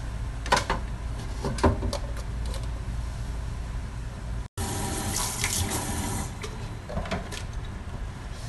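Two sharp knocks, then after a brief break, tap water running into a stainless steel sink as a wooden cutting board is rinsed under it.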